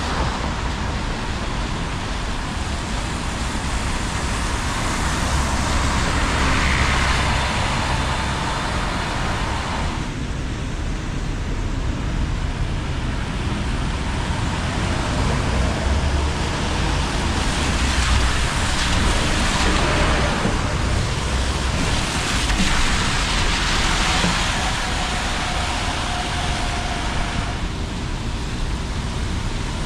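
City traffic on a rain-wet street: buses and cars passing with tyre hiss and low engine rumble, swelling as each vehicle goes by. A faint whine from a passing vehicle is heard twice.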